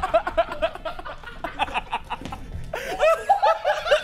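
People laughing in short repeated chuckles over background music.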